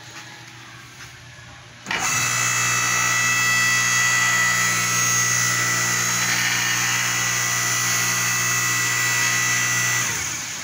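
Electric motor and hydraulic pump of a converted 6-ton electric log splitter running under power to drive the ram. It makes a steady hum with a high whine, starts about two seconds in and stops shortly before the end.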